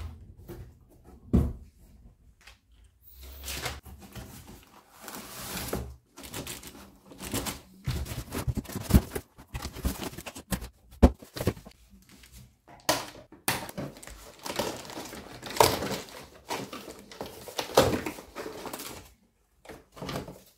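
Cardboard box and packaging being handled: irregular knocks, scrapes and clicks from the box flaps and inserts, with the plastic wrap rustling as the truck is lifted out.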